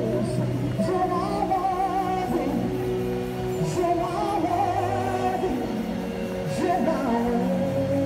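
Worship song with a woman singing, her held notes wavering with vibrato over sustained accompanying tones.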